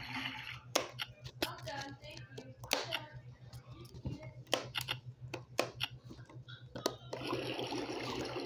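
Hard plastic clicks and knocks of a Fisher-Price Laugh & Learn Learning Kitchen toy as its buttons and parts are pressed and handled, over a steady low hum. About seven seconds in, a hissing sound effect starts from the toy's speaker.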